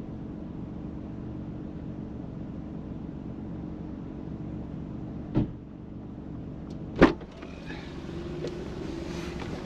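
Smart car's three-cylinder 1.0-litre engine idling steadily, then two sharp clunks of the car door about five and seven seconds in, the second the loudest, after which more outside noise is heard.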